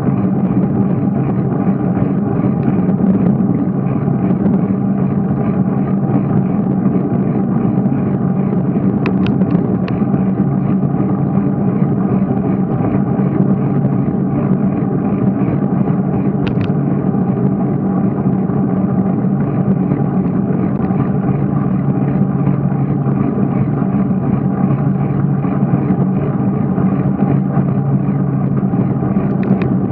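Steady rush of wind and rolling noise on the microphone of a camera riding on a moving bicycle, with a few brief clicks around nine, ten and sixteen seconds in.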